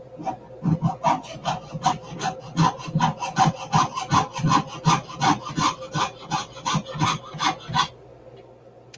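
Jeweler's saw cutting a small metal piece held against a wooden bench pin, in quick, even strokes of about three a second, which stop about a second before the end.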